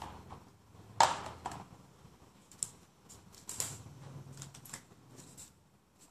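Clicks and knocks of art supplies being handled: felt-tip pens and a plastic watercolour case being moved and set down. The sharpest knock is about a second in, with lighter clicks after it.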